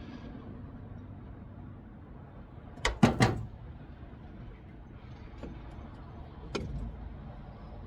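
Three sharp knocks in quick succession about three seconds in, and a single knock a little after six seconds, over a low steady hum: clanks of parts or tools being handled while working on the truck.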